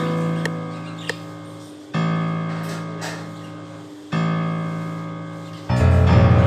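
Background music: sustained keyboard chords struck about every two seconds and fading away, then a fuller, louder passage near the end.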